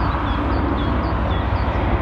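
Airbus A320neo jetliner on final approach, its CFM LEAP-1A engines giving a steady rumble at approach power. A small bird chirps over it, a short falling chirp about three times a second through the first part.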